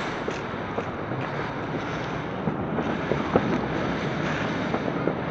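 Ground fountain firework hissing steadily as it sprays sparks, with a few scattered sharp crackles, over wind buffeting the microphone.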